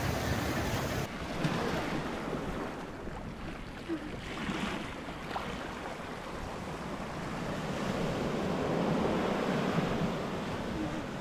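Shallow sea surf washing in over a flat sandy beach: a steady rush of water, with wind on the microphone.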